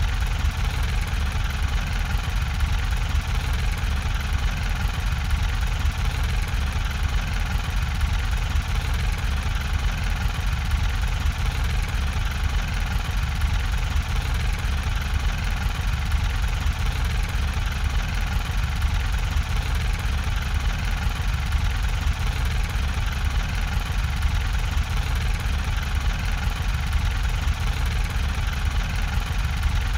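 A steady, unbroken mechanical rumble with most of its weight low down, standing in for a money printer running.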